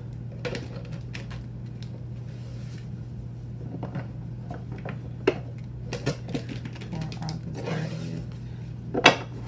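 A deck of tarot cards being shuffled by hand, the cards rustling and clacking together in irregular bursts, with sharper snaps about five seconds in and near the end, over a steady low hum.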